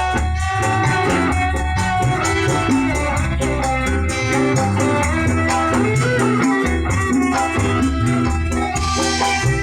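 Recorded music with a steady beat and heavy bass, played loud over a PA sound system during a sound check.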